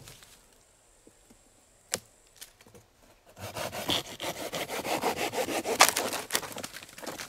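Silky Bigboy pruning saw cutting into a rotten tree stump, starting about three and a half seconds in with fast, rasping back-and-forth strokes through the soft, decayed wood.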